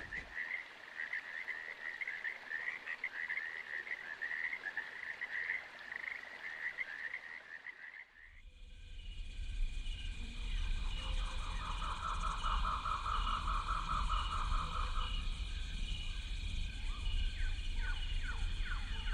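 Frogs calling in a tropical chorus. For the first eight seconds a single pulsing call repeats; then the sound changes abruptly to a denser chorus, with a rapidly repeating call, a steady high tone, a trill in the middle and a run of quick falling chirps near the end.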